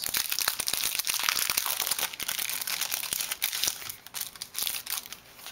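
Clear plastic packet of Stampin' Up! Dimensionals crinkling as it is handled in the hands. The dense crackly rustle thins out and gets quieter about four seconds in.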